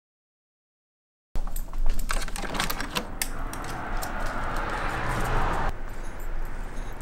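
About a second of silence, then a quick run of sharp clicks and light rattles as a front door is opened. A steady rushing noise follows from about three seconds in and cuts off suddenly near six seconds.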